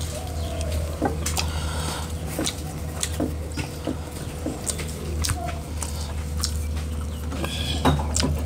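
Close-miked eating sounds: chewing and fingers mixing rice on metal plates, with scattered small clicks and taps, over a steady low hum.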